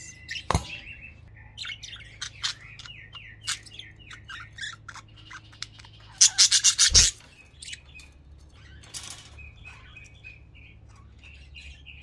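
Budgerigars chirping and chattering in short warbling calls, with a loud run of rapid, sharp chirps about six seconds in and a couple of faint knocks.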